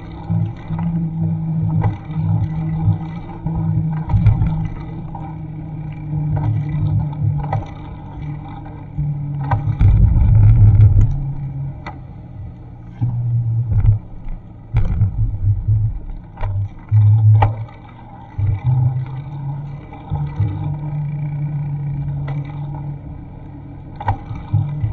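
Wind buffeting the microphone of an action camera on a moving bicycle: a heavy low rumble that keeps swelling and dropping, with a few brief knocks from bumps in the road.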